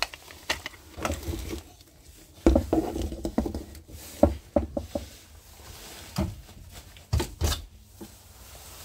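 Scattered knocks, taps and scrapes of a hand tool prying at a wooden trim piece glued and wedged against the galley cabinetry, with heavier thuds about two and a half and seven seconds in.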